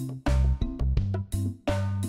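Background music with a steady beat on drum kit and bass.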